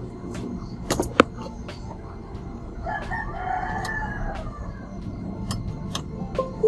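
A rooster crowing once, about three seconds in, over a steady low background hum. Two sharp clicks sound about a second in.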